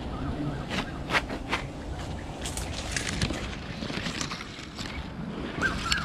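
Wind rumbling on the microphone, with a few sharp clicks or snaps in the first half and a short, rapidly warbling high call near the end.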